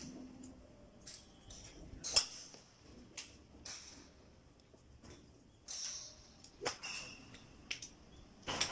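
Golf clubs striking balls: several sharp strikes at irregular intervals, each with a brief high ring. The loudest comes about two seconds in.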